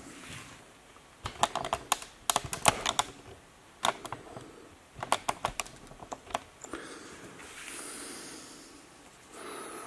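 Clusters of sharp clicks and taps from small hard objects being handled, then a soft hiss in the last few seconds.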